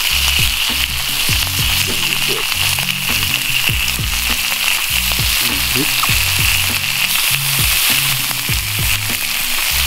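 Fish fillets sizzling steadily as they are laid one after another onto the oiled, hot steel griddle ring of a fire-bowl grill (plancha).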